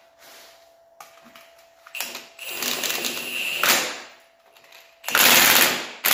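Milwaukee cordless impact wrench run on the front hub nut of an ATV in three short bursts. The last burst, near the end, is the loudest and about a second long, as the nut is driven tight.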